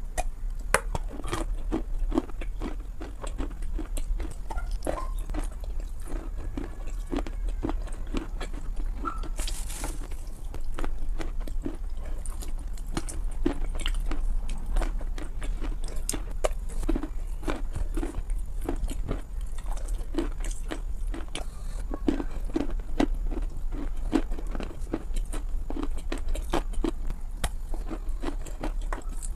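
Close-up bites and chewing of a hard block of cocoa-coloured eating chalk: dense, irregular crisp cracks and crunches as it breaks and is ground between the teeth, over a steady low hum.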